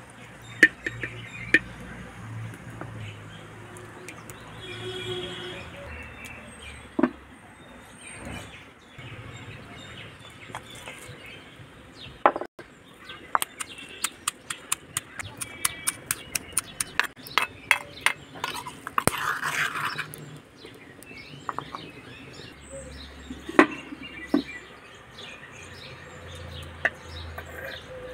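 Stone pestle pounding in a stone mortar: a quick run of sharp knocks, several a second, through the middle of the stretch. Birds chirp in the background.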